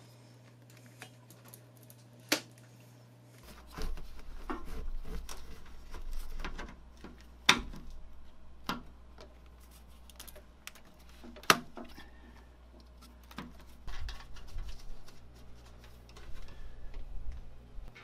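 Corrugated plastic flexible conduit and its fittings being handled and fitted by hand: irregular clicks, taps and rustling, with a few louder knocks.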